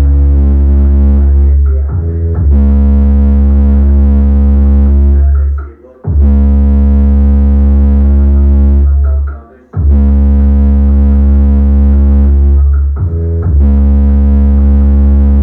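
Bass-heavy electronic music played loud through a Sony DX8 sound system. Long held synth-bass notes and chords last three to four seconds each, with short breaks between phrases.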